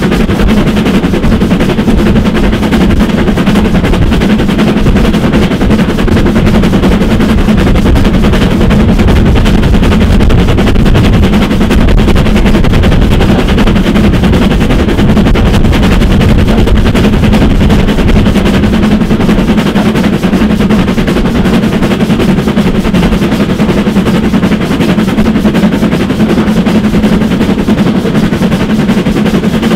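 GWR small prairie tank 5521 (L.150), a 2-6-2T, working hard as a banking engine close behind a goods train: a rapid, steady stream of exhaust beats over the running noise of the moving train.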